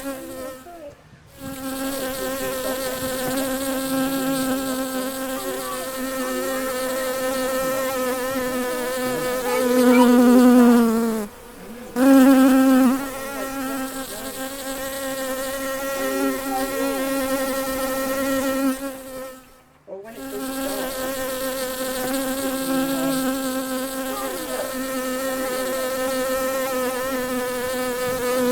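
A bee buzzing close by in a steady, pitched hum. It cuts out briefly three times and swells louder twice around the middle.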